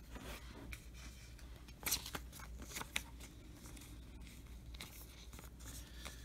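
Faint rustling of a trading card and a clear plastic card sleeve being handled as the card is slid into the sleeve, with a few light ticks, the sharpest about two and three seconds in.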